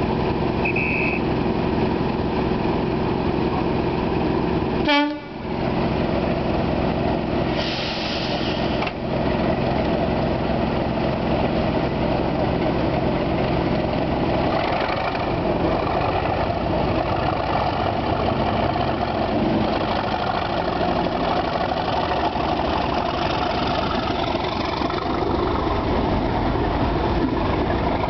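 British Rail Class 37 diesel-electric locomotive's English Electric V12 engine running steadily, then changing note about halfway through as the locomotive pulls its train away. There is a brief loud sound about five seconds in and a hiss around eight seconds in.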